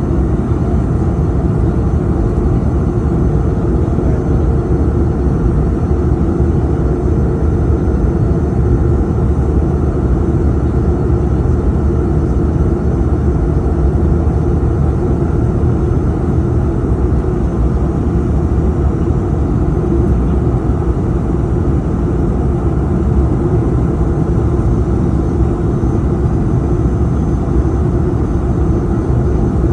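Steady cabin noise of an Airbus A220-300: a constant rumble of its Pratt & Whitney PW1500G geared turbofans and rushing air, with a steady hum over it.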